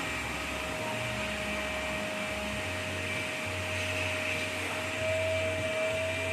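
A steady machine hum with a constant whine.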